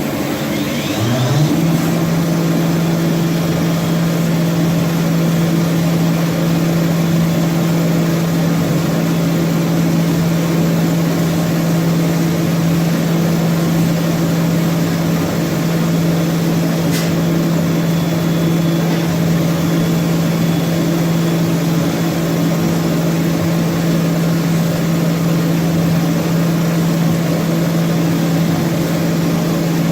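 HOMAG BOF 41/K CNC machining center running: a steady, loud motor hum. Its pitch climbs back up about a second in, then holds level, with one short tick partway through.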